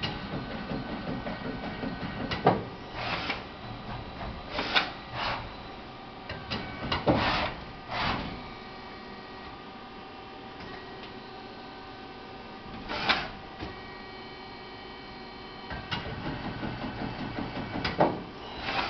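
Leadwell T-7 CNC lathe running: a steady whine of several tones from its drives, broken by short, loud mechanical bursts every second or few seconds.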